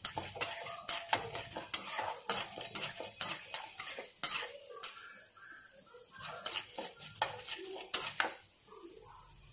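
A metal ladle scraping and clinking against a metal kadai as urad dal and chana dal are stirred in oil. There are irregular clicks a few times a second, thinning out in the second half.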